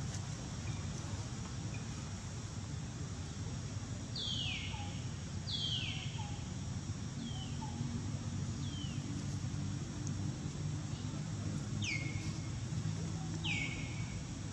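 A bird repeating a short call that falls sharply in pitch, six times from about four seconds in, roughly one every second and a half with a pause midway. A steady low background noise runs underneath.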